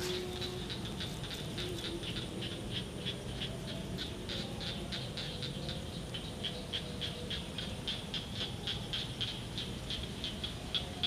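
Quick, evenly spaced high chirps, about four a second, from a calling animal, over a low steady background rumble.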